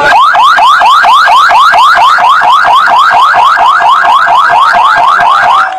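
Electronic siren sounding in a fast yelp, its pitch sweeping upward over and over, about four or five times a second, then cutting off near the end. It is sounded as the signal that the event is officially opened.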